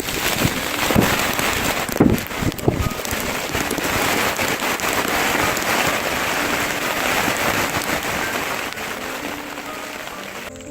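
Steady rushing hiss like heavy rain, with a few sharp knocks in the first three seconds, fading away over the last two seconds.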